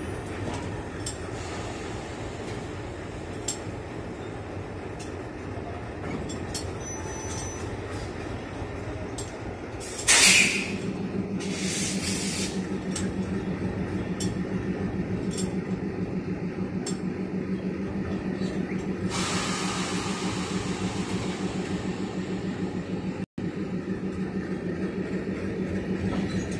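ALCo WDG3A diesel locomotive idling with a steady rumble, with light metallic clinks at the coupling. About ten seconds in comes a sudden loud burst of air hiss, then a second shorter hiss, typical of brake air hoses being coupled and opened between locomotive and coach. After that a steady pulsing drone runs under the idle, and a longer softer air hiss comes a few seconds later.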